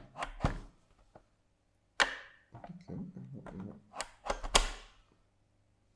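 V-mount battery being seated and locked onto a Blackmagic URSA V-lock battery plate: a series of sharp hard-plastic clicks and knocks with handling rustle between them. One loud knock comes about two seconds in, and the loudest comes in a cluster of clicks about four and a half seconds in.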